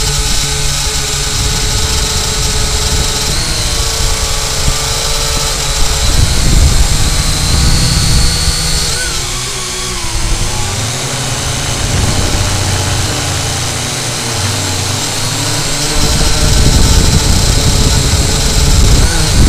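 Syma X8W quadcopter's motors and propellers whining, heard from a camera mounted on the drone, with wind buffeting the microphone as a heavy low rumble. The motor pitch shifts as the drone banks and turns about halfway through.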